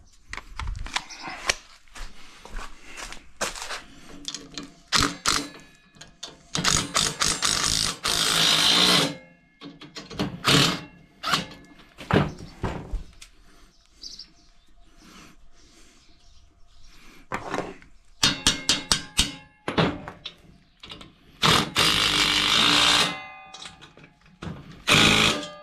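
Cordless impact driver running bolts into the roof-rack bars in several short bursts of rapid hammering with a motor whine, the longest about two seconds, with clanks and knocks of the metal rack parts and tool between them.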